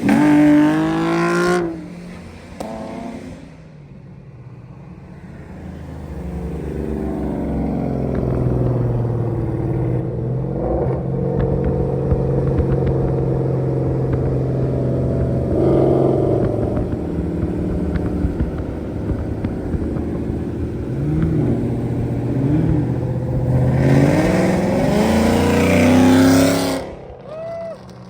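Performance car engine and exhaust accelerating hard, the pitch climbing for about a second and a half, then cruising with a steady drone. Near the end it pulls hard again with rising pitch for a few seconds before dropping off suddenly.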